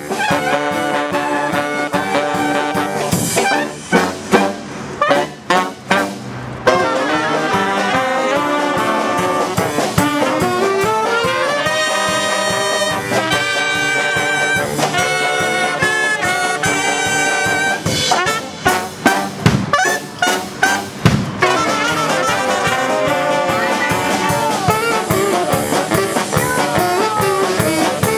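Small jazz brass band playing live: saxophone, tuba, trombone and trumpet over a drum kit. Twice, about four and about eighteen seconds in, the held horn notes break off for a few seconds of sharp separate drum hits before the band comes back in.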